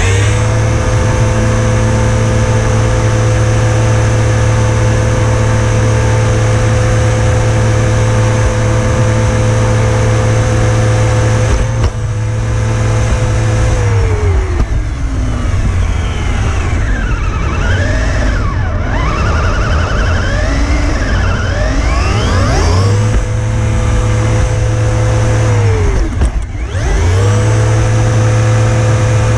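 RC crawler's motor and gears whining at a steady high pitch as it runs flat out on tarmac, with tyre noise underneath. About halfway through the whine falls away and its pitch wanders up and down as the throttle varies, then it settles back to a steady whine, dipping once briefly near the end.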